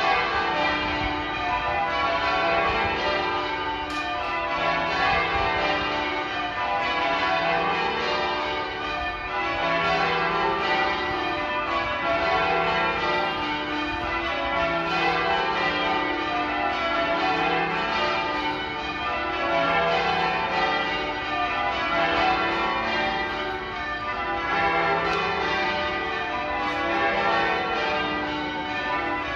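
Manchester Cathedral's ring of church bells being change-rung: a continuous stream of bell strokes following one another in a shifting order. The deepest bell sounds at a regular beat, about every two and a half seconds.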